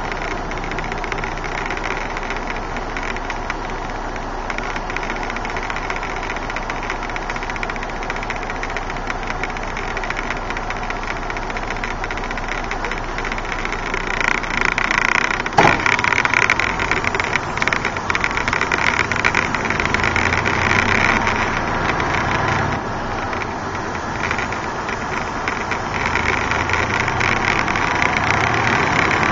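Truck's diesel engine heard from inside the cab, idling steadily, then getting louder about halfway through as the truck pulls away and drives off. There is a single sharp clack just after it picks up.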